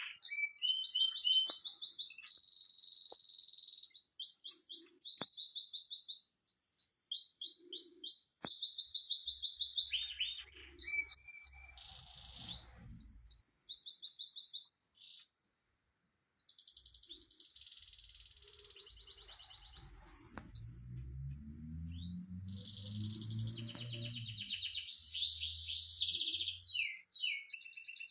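Caged canary singing: long rolling trills of rapid repeated notes, one phrase running into the next, with a short break just past the middle. A low hum sits underneath for a few seconds in the second half.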